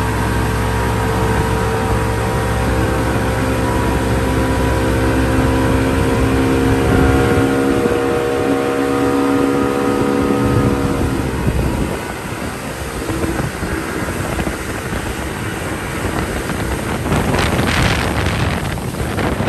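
A motor engine running steadily, its tone dying away about eleven seconds in, followed by wind buffeting the microphone.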